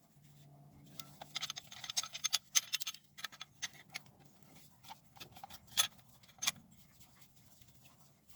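Small metal brake parts clicking and rattling as they are handled and fitted: a quick run of light metallic clicks about a second in, then scattered sharper clicks, two of them standing out past the middle.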